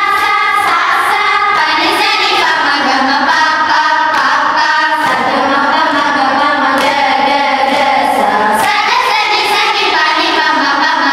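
A group of schoolgirls singing a song together in unison, holding long sustained notes.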